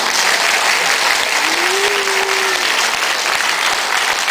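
Audience applauding a children's stage play as it ends: steady clapping from a full hall.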